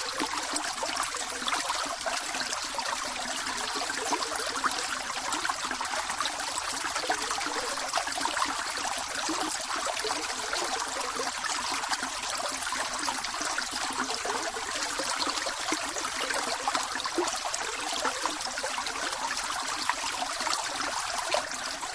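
Snowmelt mountain stream running, a steady rush of flowing water.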